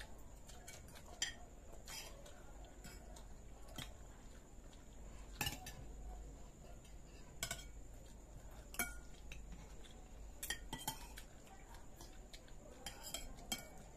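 Metal spoons and forks clinking against ceramic plates and a serving bowl during a meal: about a dozen irregular, sharp clinks, with quiet stretches between.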